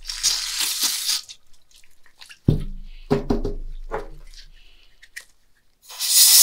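Aerosol brake cleaner hissing as it is sprayed into a ball bearing for about a second. Then a few clunks and knocks with brief metallic ringing as the can is set down and the bearing is handled in a metal pot. Near the end comes a loud steady hiss of canned air blowing the solvent out of the bearing to dry it.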